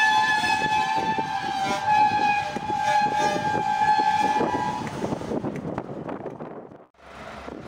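Freight train of covered hopper cars rolling slowly past, its brakes squealing in several steady high tones over the clatter of wheels on the rails. The squeal fades about five seconds in, and the sound cuts off abruptly near the end.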